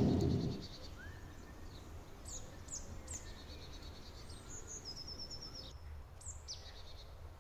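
Birds singing: scattered high, quick downward chirps and a few short rapid trills, over a faint steady low rumble.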